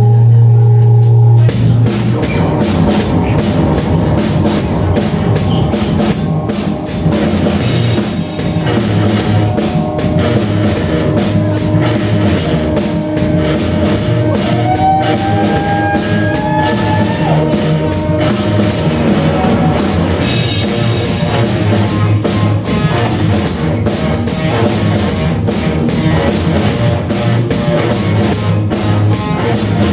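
Live rock band playing on electric guitar, electric bass and drum kit. A held low note opens it, the full band with steady drumming comes in about a second and a half in, and a high tone glides upward around the middle.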